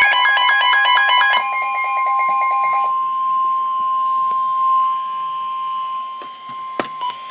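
Emergency Alert System warning alarm tone: a loud, steady single tone near 1 kHz, held for several seconds before a National Weather Service warning. For the first few seconds rapid pulsing beeps sound over it, and a few sharp knocks come near the end before the tone cuts off.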